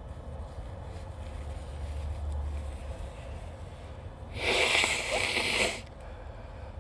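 A person's hard, breathy sniff through an allergy-congested nose, lasting about a second and a half and starting a little past halfway, over a steady low rumble.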